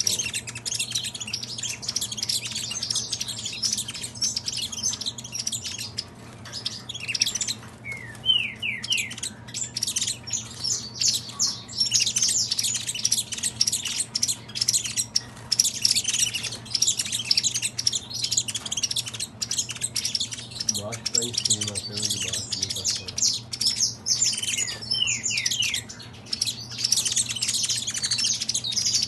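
Caged saffron finches (canário-da-terra) singing: a continuous stream of rapid, high chirps and trills, with a few quick falling notes about eight seconds in and again near 25 seconds.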